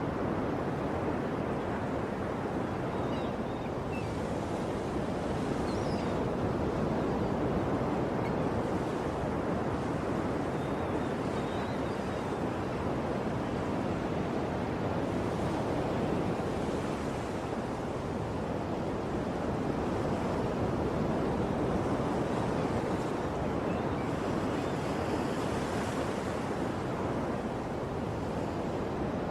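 Ocean waves breaking on a shore in a continuous wash of surf that swells and eases gently, with a few faint high chirps over it.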